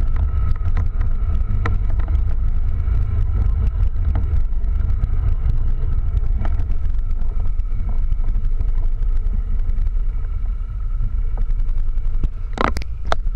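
ATV engine running as the quad rides along a snowy track, a heavy, steady low rumble with a faint steady whine above it; it eases off a little before the end. Two or three short, sharp clacks come near the end.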